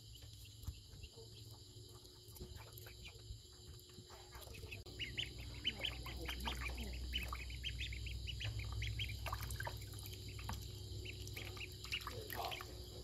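Ducklings peeping, short high calls that come sparsely at first and then in quick, busy runs from about five seconds in.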